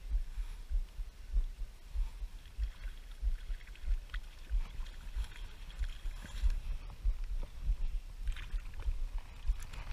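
Uneven low rumbling of wind buffeting the microphone, with faint small splashes from a hooked fish at the water's surface.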